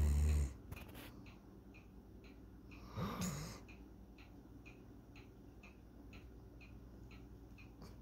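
Sleeping dog snoring: a loud, low snore at the very start and a second, shorter one that rises and falls in pitch about three seconds in. A faint steady ticking, about two ticks a second, runs underneath.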